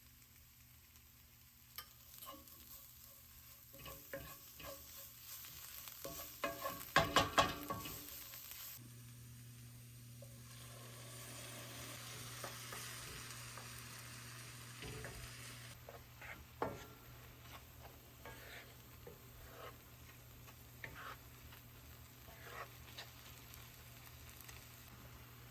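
Bhindi masala (okra) frying in a pan, stirred with a spatula that clicks and scrapes against the pan, with a loud cluster of clicks about seven seconds in. A steady sizzle comes up around the middle, and scattered stirring clicks follow.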